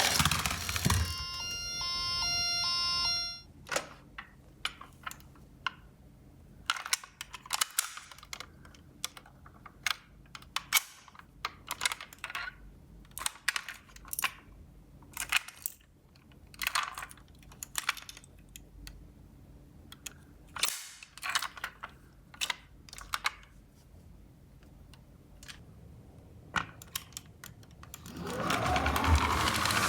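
Toy ambulance electronic siren beeping in a stepped pattern for about three seconds, then stopping. Many scattered sharp plastic clicks and clacks of toy minicars being handled follow. Near the end a loud rising siren wail starts.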